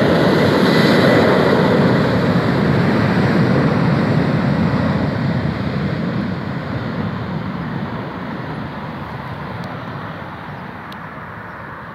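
Boeing 737-800's CFM56-7B turbofan engines at takeoff thrust as the jet accelerates down the runway: loud, steady jet noise with a thin high whine in the first few seconds, fading steadily as the aircraft rolls away.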